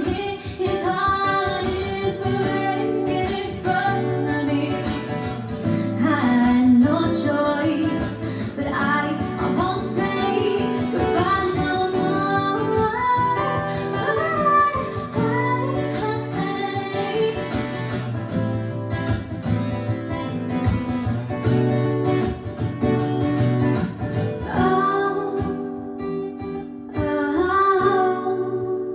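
Song with a female voice singing over strummed acoustic guitar, played back through Dynaudio Contour 30i loudspeakers on a hi-fi system. The music plays continuously, thinning briefly near the end.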